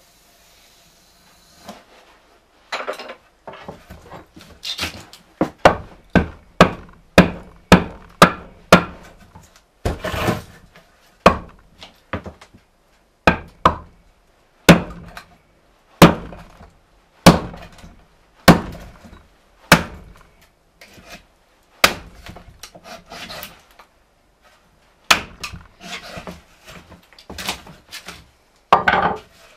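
Hatchet chopping into a thick wooden slab held upright, hewing its face flat: a long run of sharp chops, about one or two a second, with a short pause about three-quarters of the way through.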